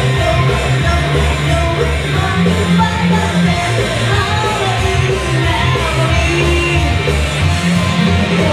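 A woman singing live into a microphone over loud backing music with a steady, pulsing bass beat, heard through a club's PA system.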